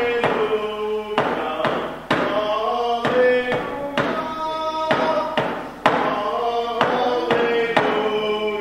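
Male voice choir singing held notes in close harmony, with sharp percussive strikes keeping a steady beat of about one a second underneath.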